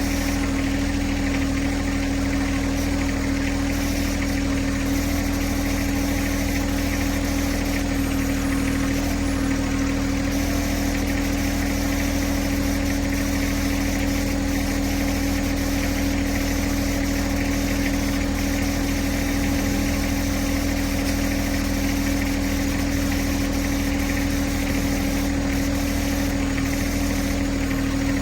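John Deere 1026R compact tractor's three-cylinder diesel engine running at a steady, unchanging speed.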